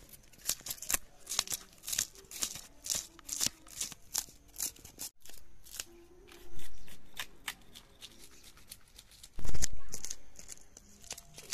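Knife scraping the scales off a whole carp: a quick run of short rasping strokes, about three a second. Two louder dull thuds break in, the loudest near the end.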